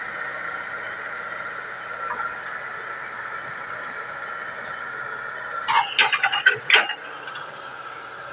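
Hitachi 110 hydraulic excavator running steadily while working. About six seconds in comes a quick cluster of short, sharp noises.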